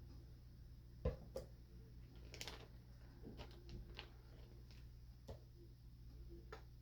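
A few faint knocks and clicks from kitchen items being handled, the sharpest about a second in, with a short rustle or scrape a little later, over a low steady hum.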